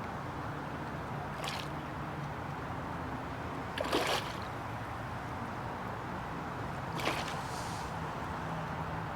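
Steady outdoor noise with three brief splashing sounds, the loudest about four seconds in.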